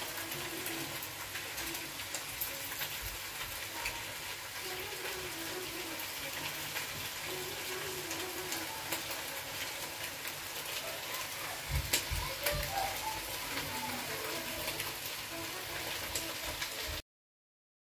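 Steady crackling hiss with faint voices in the background and a few soft knocks about twelve seconds in; it cuts off suddenly near the end.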